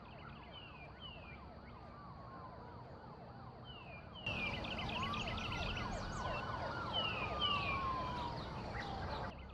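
Police sirens sounding outside, overlapping: a fast yelp repeating about twice a second under a slower rising-and-falling wail. They are louder and clearer from about four seconds in until just before the end.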